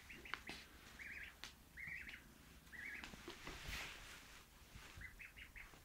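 Grey kitten giving short, high-pitched squeaky mews in quick runs of two to four, repeated several times, with a few light scratches and rustles.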